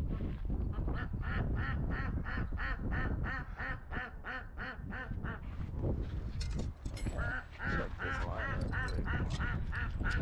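Ducks quacking in quick runs of about four calls a second, in two bouts with a short break around the middle.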